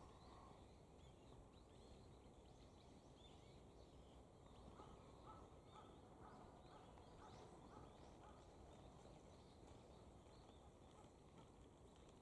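Near silence: faint outdoor background with soft, short bird calls repeating about twice a second in the middle.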